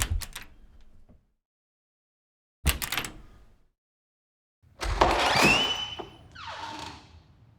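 A series of door-opening sound effects. First a sharp latch clunk, then a second clunk about three seconds in, each dying away within a second. From about five seconds in comes a longer door swinging open with a squeaky hinge creak that slides down in pitch.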